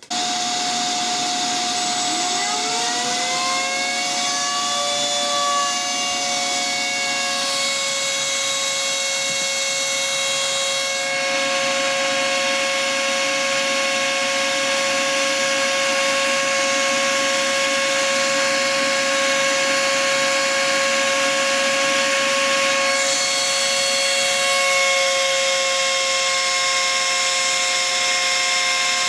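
High-pitched whine of a homemade CNC's brushless spindle: a Turnigy P2627L RC outrunner motor driving a Foredom handpiece, engraving a plastic phone case. The whine starts suddenly, and one tone rises in pitch over the first few seconds, then holds steady. A harsher hiss joins in from about 11 to 23 seconds.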